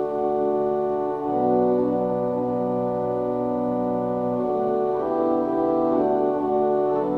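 Church organ playing slow, sustained chords that change every second or so, with a low pedal note held through the first half.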